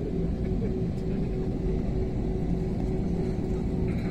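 Steady cabin rumble of an Airbus A320-family jet airliner rolling on the ground, with a steady engine hum running through it.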